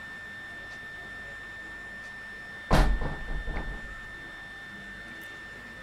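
A single loud thump nearly three seconds in, heaviest in the low end and fading over about a second, over a steady faint high-pitched whine.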